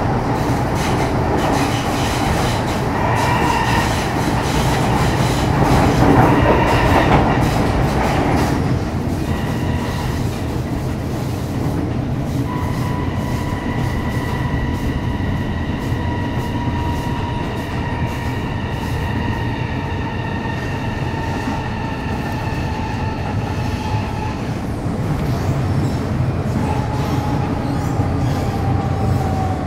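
Running noise inside an MTR Metro Cammell M-Train (CT-stock) electric multiple unit with GEC GTO chopper traction, rumbling along the track. From about twelve seconds in, a steady whine with overtones slowly falls in pitch, and a second, lower falling whine sets in near the end.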